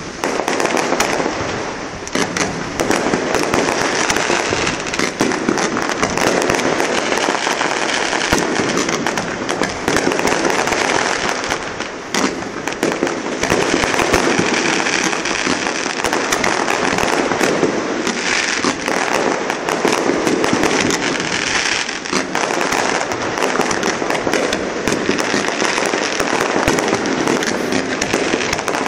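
Fireworks display: aerial shells bursting and crackling in a dense, continuous barrage, bangs following one another almost without a break.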